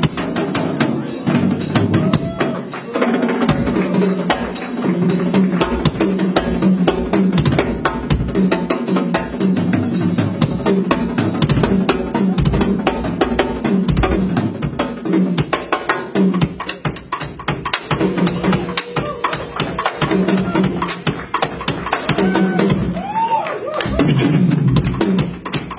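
A drum kit played live in a fast, busy rhythm, with bass drum and snare to the fore, as part of band music.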